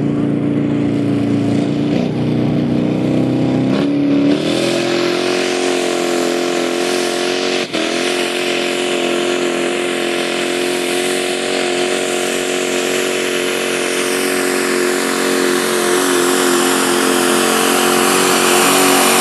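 Pro mod diesel pickup's engine at full throttle under heavy load, pulling a weight-transfer sled. It runs steadily, rises in pitch about four seconds in, then holds that higher pitch for the rest of the pull.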